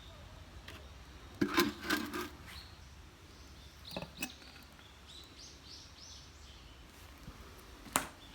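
A few sharp knocks and clatters, the sharpest near the end, with faint short high chirps between them.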